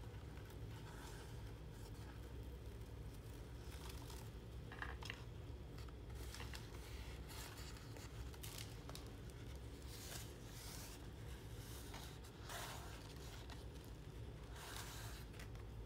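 Thick collaged paper pages and twine of a handmade art journal being handled, with short rustles and scrapes every second or two as the twine is loosened and the pages are opened. A steady low hum runs underneath.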